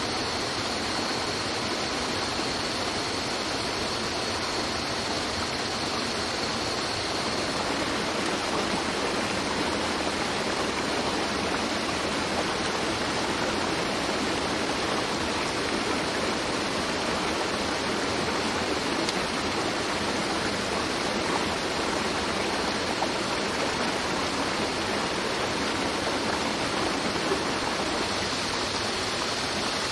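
Steady rushing of a mountain stream's running water, with a faint thin high tone in the first several seconds and again near the end.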